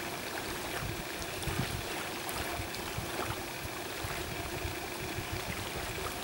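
Steady outdoor background noise: an even hiss with a low, unsteady rumble underneath and a few faint ticks.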